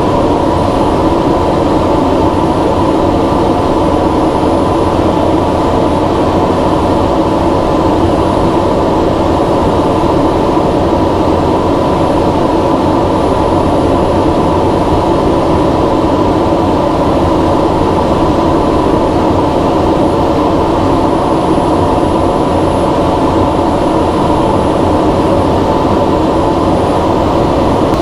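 Steady cockpit drone of a NASA ER-2 high-altitude jet in cruise: engine and airflow noise with a few steady hums.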